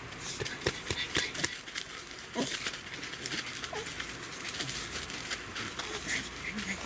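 Dogs moving about and scrabbling on a tent's floor mat: many scattered clicks and rustles, with a few brief whines.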